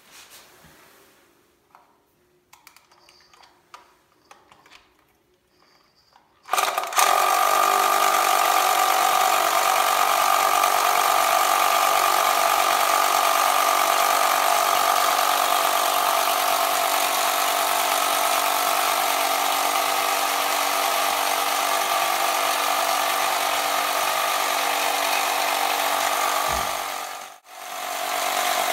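The small motor and gearing of a 1989 TOMY toy biplane whirring steadily as it spins the propeller, switching on suddenly after a few seconds of faint clicks. The whirr cuts out for a moment near the end and starts again at once.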